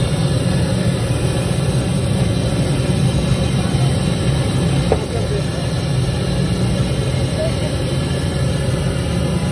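A steady, loud low mechanical hum like an idling engine, with people's voices chattering underneath.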